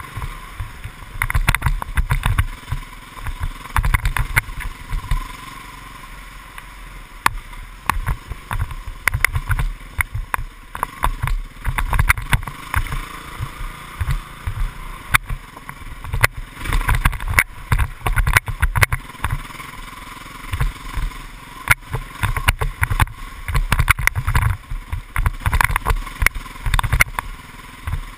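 Dirt bike engine running as the bike rides a rough wooded trail, with frequent knocks and thumps from bumps.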